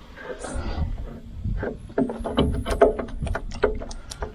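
Heavy machinery running with a low rumble under a quick, irregular run of metal clanks and squeaks, busiest from about two seconds in, as the loader's hydraulic cylinders are handled for lifting into place.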